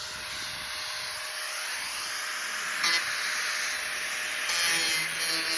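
Angle grinder cutting into the sheet-steel shell of a diesel car muffler: a steady hissing grind, with a brief squeal about three seconds in and a louder, higher screech for about a second near the end as the wheel bites.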